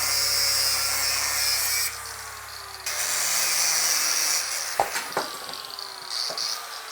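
Angle grinder with a cutoff wheel cutting through a steel mower axle, a steady high-pitched grind that dips briefly about two seconds in, then stops a little after four seconds and winds down with falling pitch. A few sharp knocks follow near the end.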